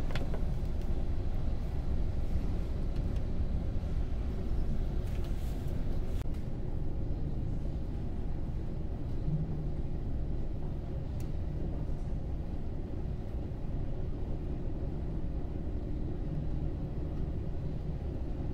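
Steady low rumble of a large car ferry under way, heard from inside the ship.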